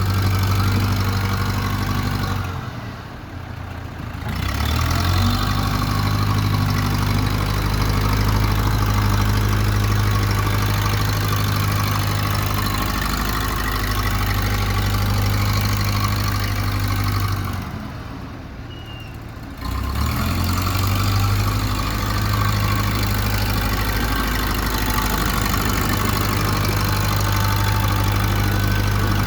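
1969 backhoe-loader's engine running steadily while the loader back-drags gravel. The sound drops away briefly twice, once a few seconds in and again past the middle.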